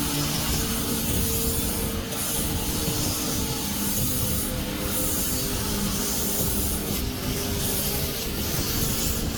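A power tool running steadily, with continuous abrasive rubbing noise over a steady hum.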